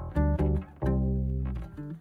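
Background music of plucked string notes over a deep bass, a new note every half second or so.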